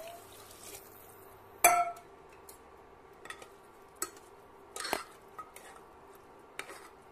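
Scattered metal clinks and knocks of a spoon against a pressure cooker as rice and water are stirred in it. The loudest clank comes about one and a half seconds in.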